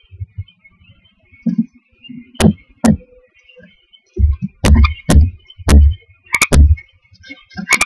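Knocks and thumps on the wooden floor and walls of a barn owl nest box as the owlets shuffle about, a few at first and then a quick run of heavy thuds in the second half, over a faint steady hiss.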